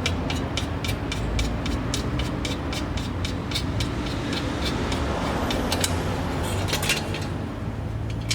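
Even, rapid clicking, about four clicks a second, from a tool working the Phillips screws that hold the dust shield on a Honda Fit's front steering knuckle. It gives way to a few irregular metal clicks about halfway through, over a steady low workshop hum.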